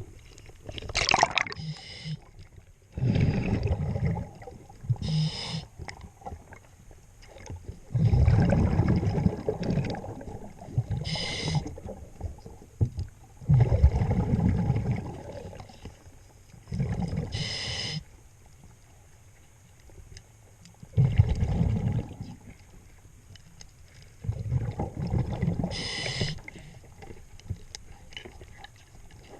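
A scuba diver breathing through a regulator underwater, several times over. Each breath is a short hiss on the inhale, then a loud rumble of exhaust bubbles on the exhale.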